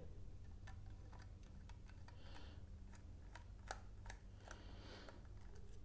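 Faint, irregular small clicks and a couple of soft scrapes from a small magnetic precision screwdriver turning a tiny screw out of a model locomotive's plastic chassis.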